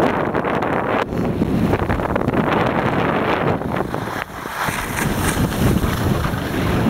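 Wind rushing and buffeting over the microphone of a camera carried by a skier moving downhill, mixed with the hiss of skis sliding on packed snow.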